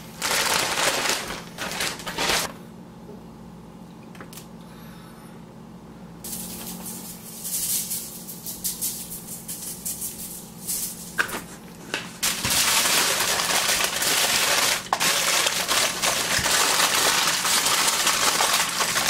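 Frozen vegetables rattling out of a plastic bag onto aluminium foil. After a quieter stretch, aluminium foil crinkles loudly and continuously for the last several seconds as it is folded and scrunched into a packet.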